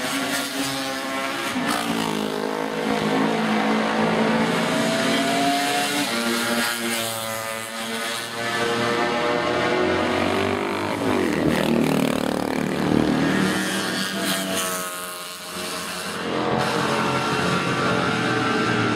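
Classic racing motorcycles passing at speed one after another, several engines overlapping, each engine note rising and falling in pitch as a bike approaches and goes by.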